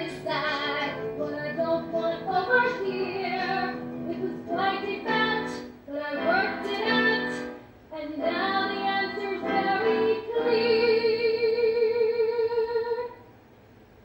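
Women singing a musical-theatre number in several sung phrases. The last phrase ends on a long held note with vibrato, which stops about thirteen seconds in.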